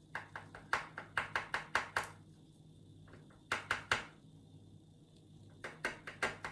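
Small metal clicks and taps from the opened padlock and its parts being handled while the pins are worked out: a quick run of about ten clicks, then three, then four.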